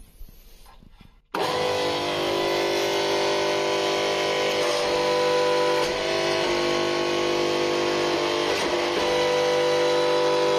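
A workshop press's motor switches on suddenly about a second in and runs steadily, a loud hum with several steady tones. The press is running again after a broken part was replaced with a home-made one.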